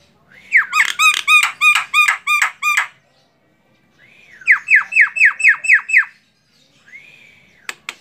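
Female Javan myna (jalak kebo) calling: a quick run of about ten repeated harsh notes, and after a pause a second run of about seven falling notes. A few sharp clicks follow near the end.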